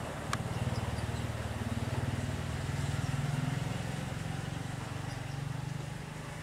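Diesel locomotive engine rumbling low and steady as the train approaches. A single sharp click comes about a third of a second in.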